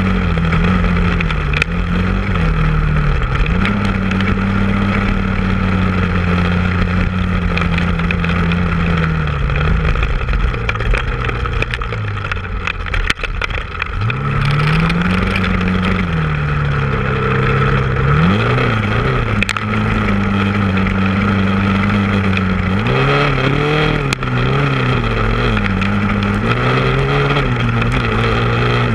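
Honda off-road vehicle engine running under way. It holds a steady pitch for long stretches, drops off about halfway through, then picks up again, with a few quick revs up and down later on.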